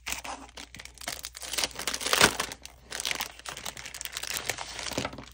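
Clear plastic packaging sleeve crinkling as it is handled and its flap is lifted open, an irregular run of crackles with the sharpest one about two seconds in.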